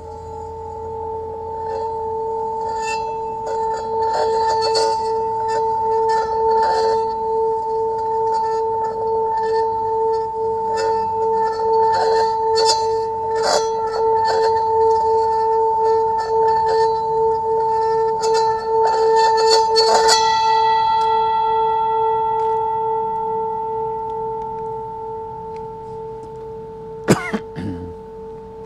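A singing bowl ringing with a steady, slowly pulsing hum, with many quick clinking strikes over it. The clinks stop about two-thirds of the way through and the tone slowly fades, with one sharp knock near the end.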